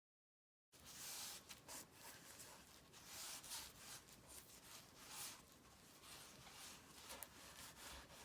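Dead silence for under a second, then faint, irregular rubbing and scraping of paint being spread across a canvas.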